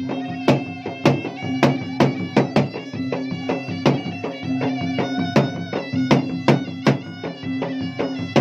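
Two Bugis-Makassar gendang drums beaten in a fast, busy rhythm of sharp strokes, over a reedy wind instrument holding a steady drone and playing a melody above it.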